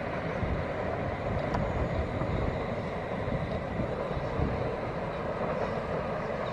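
Distant long passenger train running along the track: a steady rumble of wheels and coaches.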